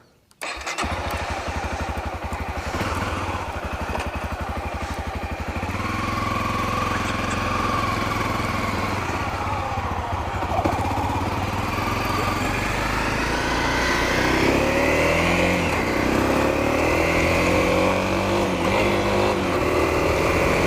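Dual-sport motorcycle engine starting about a second in and idling with a fast, even beat. A second engine note joins about six seconds in, and from then on the engine pitch rises and falls with light revving.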